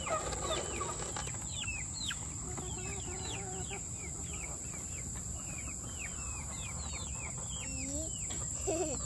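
Chickens in a poultry run: many short, high, falling peeps, several a second, with a few low clucks about three seconds in and again near the end.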